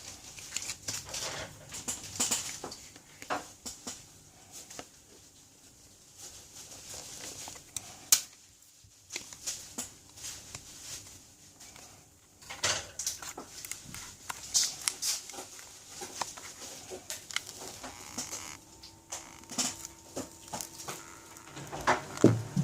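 Scattered small clicks and taps of hand tools and plastic parts being handled while a smartphone is taken apart. Near the end a faint steady hum joins in.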